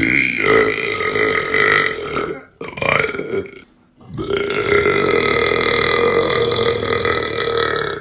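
A person burping loudly three times: a long burp already under way, a short one, then a long drawn-out burp of about four seconds.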